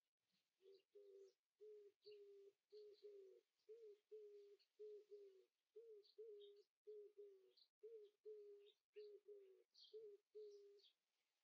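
Faint bird calls in the background: a steady run of short, low, single-pitch notes, about two a second and some in quick pairs, over faint high chirps. The calls stop shortly before the end.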